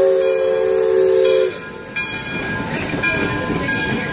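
The steam whistle of the Dixiana, a Shay geared steam locomotive, blowing a steady chord of several notes with a hiss of steam, cutting off about a second and a half in. The clattering, rumbling noise of the train pulling away follows.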